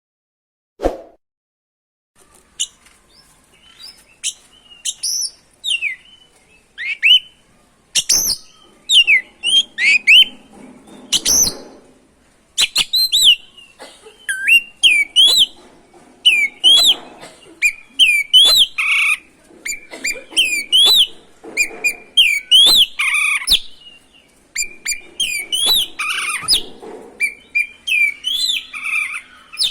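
Oriental magpie-robin (kacer) singing continuously in rapid, varied phrases of whistles and quick rising and falling notes, with a few sharp cracking notes. The song starts about two seconds in, after a single short knock.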